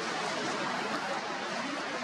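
Steady rushing of surf on a pebble beach, an even hiss with no separate hits.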